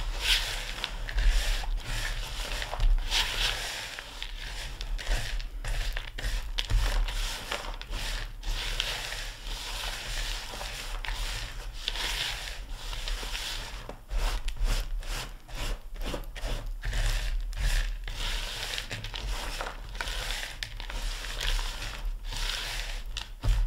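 A spatula stirring a crumbly mixture of chopped pecans and brown sugar in a large bowl, making continuous crunching and scraping with many short crackles as the crumbs are turned over.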